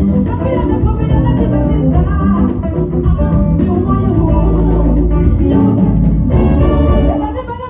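Loud live gospel band music with a heavy bass line and drums keeping a steady dance beat. The music dips briefly near the end.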